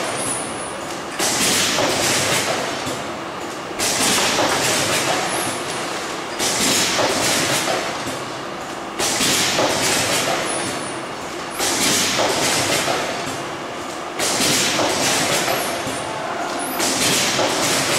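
Sauce packaging machine running through its cycle, which repeats about every two and a half seconds: each cycle starts suddenly with a loud, hissy rush of noise that fades before the next begins.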